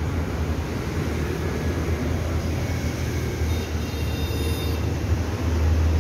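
City street traffic noise: a steady low rumble of passing vehicles that grows louder near the end.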